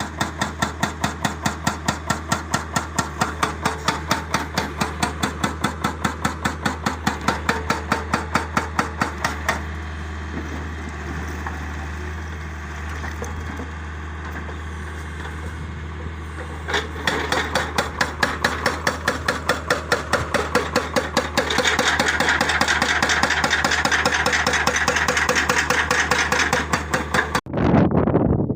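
Heavy diesel machinery running with a steady low drone and rapid, regular hammering knocks, about four or five a second, that pause for several seconds in the middle and then return, turning denser and harsher near the end before cutting off suddenly.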